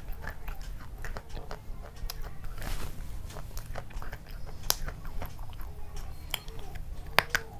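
Close-up mukbang eating sounds: a person biting and chewing chocolate, with irregular crisp crunches and mouth clicks and a louder snap about five seconds in and again near the end. A steady low hum runs underneath.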